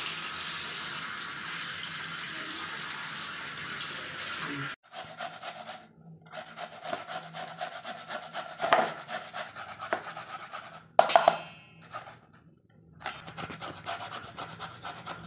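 Tap water running steadily over radish pieces in a plastic colander, cut off sharply after about five seconds. Then a white radish being grated on a flat metal hand grater into a steel bowl: quick, continuous rasping strokes, with one louder metallic clank about two-thirds of the way through.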